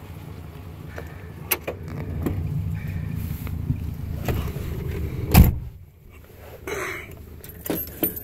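The driver's door of a 1954 Ford Crestline opening, with a couple of latch clicks, then slammed shut with a loud thud about five seconds in. A short rustle follows, then ignition keys jangling near the end.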